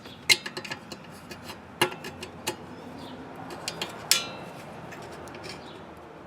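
Scattered clicks, knocks and rattles from handling an electrical disconnect box and feeding wires into it, with one sharper clank about four seconds in that rings briefly.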